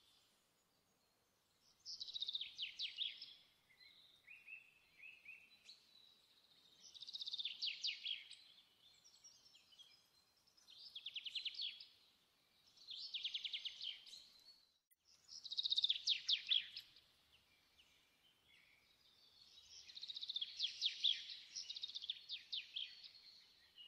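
A bird singing: high-pitched, rapidly trilled phrases of one to three seconds, repeated about every three to four seconds with short pauses between them.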